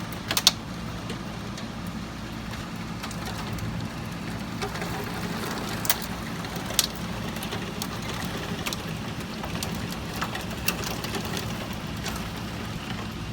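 Steady thunderstorm rain, with scattered sharper drops ticking over it and a low steady hum underneath.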